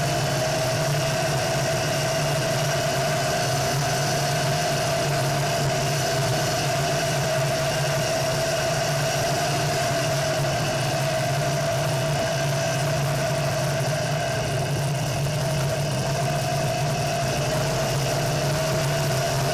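Home-built off-road buggy's engine running at a steady cruising speed on a gravel road, a constant drone that hardly changes in pitch.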